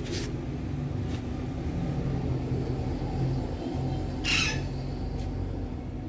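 Female ringneck parakeet giving one short harsh squawk about four seconds in, with fainter brief sounds before and after, over a steady low rumble.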